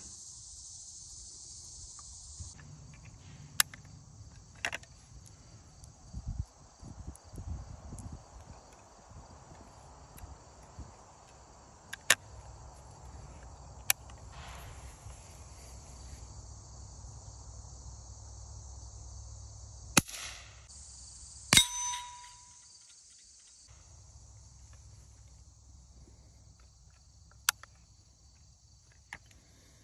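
Scattered sharp metallic clicks from the action of a Stevens Ideal tip-up .22 Short rifle being handled and opened, one of them with a brief ringing tone, over a steady drone of insects.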